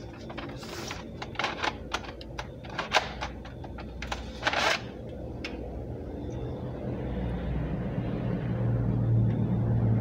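Sharp plastic clicks and knocks from a laptop's plastic case being handled and lifted, with one longer, louder scrape about halfway. After that a low rumble builds steadily toward the end.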